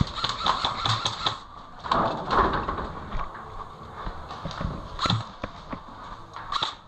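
Irregular knocks, clicks and rustling from a player moving on foot in airsoft gear: footsteps and gear knocking about.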